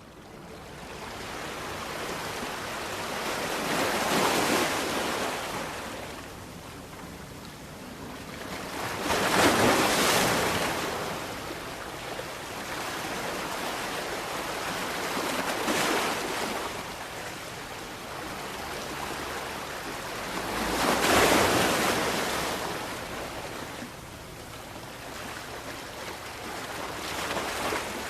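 Sea waves surging and receding over a steady hiss of surf, with four louder swells spaced about five to six seconds apart.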